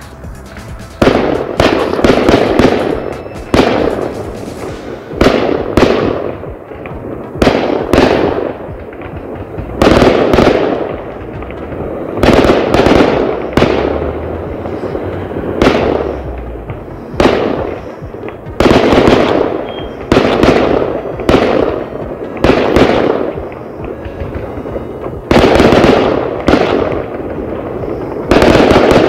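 Aerial fireworks shells bursting in the sky, about one loud bang a second, each echoing away before the next.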